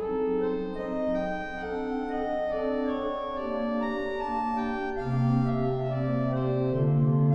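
Church pipe organ playing slow sustained chords, the notes held and changing in steps. A loud low pedal note comes in about five seconds in and steps up shortly before the end.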